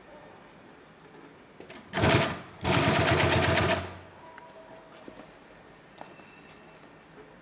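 Two-needle post-bed compound-feed industrial sewing machine stitching in two short bursts about two seconds in: a quick blip, then about a second of fast, even stitching before it stops.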